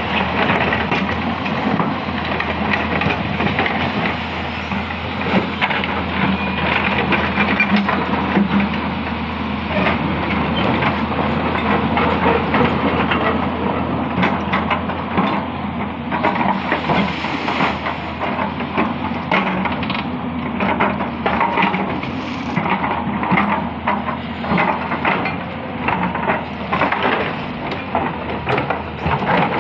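Hyundai 220-9S crawler excavator working a riverbed: its diesel engine runs steadily under load while the bucket digs. Many irregular knocks, cracks and scraping crunches come from the bucket working the bottom.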